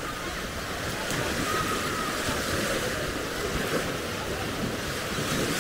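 Small Baltic Sea waves breaking and washing up on a sandy beach in a steady wash, with wind buffeting the microphone.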